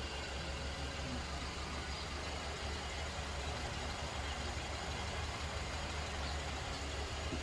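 A vehicle engine idling with a steady low rumble, unchanged throughout.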